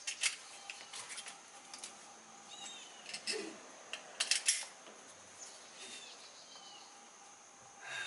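Seatbelt strap and metal buckle being handled on a seatbelt-webbing cot, with scattered sharp metallic clicks and rattles and a quick cluster of clicks about four seconds in as the belt is pulled across the body.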